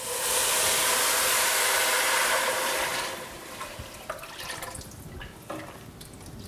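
Chicken broth pouring from a glass jar into a stainless steel stockpot of sautéing vegetables: a loud rush of liquid for about three seconds that thins out and fades. Then a few light knocks as the pot is stirred with a wooden spoon.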